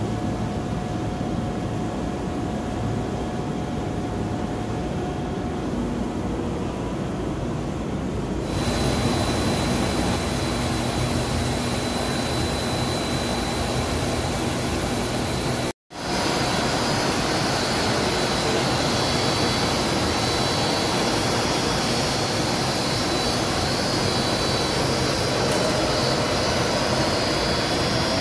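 Steady rushing machine noise of an FK/BFS-55/65/55-1400-TS three-layer co-extrusion blown film line running. It grows brighter and hissier about a third of the way in, cuts out for an instant about halfway, and then carries a few faint steady whining tones.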